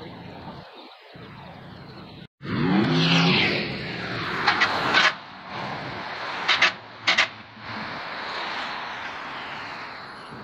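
City road traffic: cars and double-decker buses driving past with engine and tyre noise. A loud vehicle passes just after a brief cut about two seconds in, and a few short, sharp high-pitched sounds stand out over the traffic a few seconds later.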